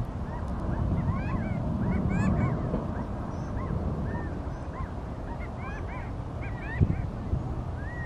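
A covey of quail foraging on the ground, giving many short, arched contact calls that overlap one another, over wind rumble on the microphone. A brief sharp knock sounds about seven seconds in.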